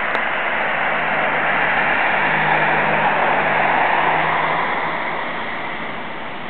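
A road vehicle passing: a rushing tyre noise with a low hum under it, swelling to its loudest about three to four seconds in, then fading.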